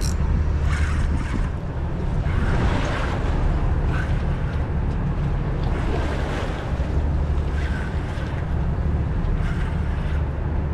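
Boat underway at sea: a steady low engine drone under the rush and splash of water against the hull, with wind buffeting the microphone.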